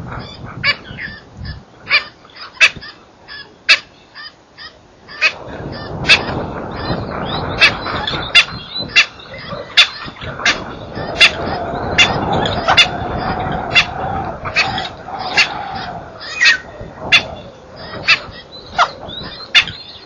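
Wild birds calling around a bush: many short, sharp calls at irregular intervals, with a longer drawn-out call in the middle under a steady rushing background.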